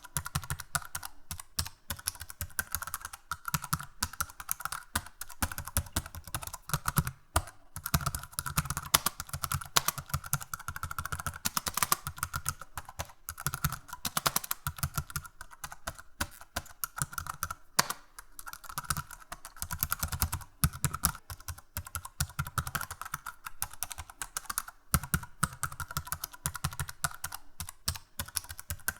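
Computer keyboard being typed on continuously, a fast, uneven stream of key clicks with short pauses.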